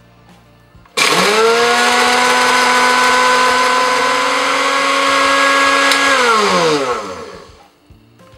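Electric blade coffee grinder grinding oven-dried red peppers into paprika powder. The motor starts suddenly about a second in and quickly spins up to a loud, steady whine. It runs for about five seconds, then is switched off and winds down with a falling pitch.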